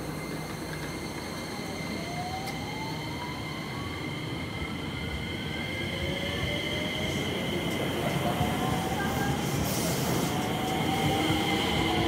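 JR West Special Rapid Service electric train pulling out of the platform. Its VVVF inverter drive whines in steady tones and in pitches that rise as it picks up speed, over a rumble of the cars that grows louder as they pass.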